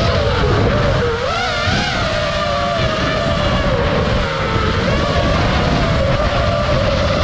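FPV quadcopter's electric motors and propellers whining, the pitch rising and dipping with throttle changes, over a steady rush of wind noise.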